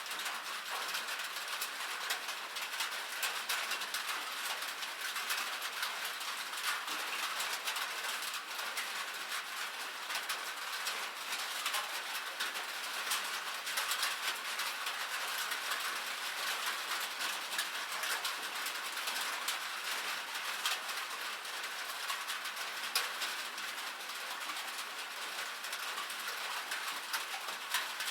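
Steady rain pattering on a cabin roof: a dense, even stream of small drop clicks, with no thunder.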